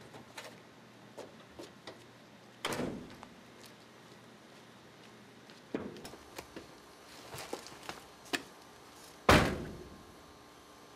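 Doors of a full-size cargo van being shut with heavy thunks: one a little under three seconds in, a smaller one near six seconds and the loudest near the end, with small clicks and knocks in between.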